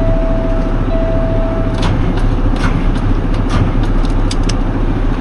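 Heavy truck's diesel engine idling steadily. A steady tone sounds over it for the first two seconds, broken once, and a few sharp clicks fall through the rest.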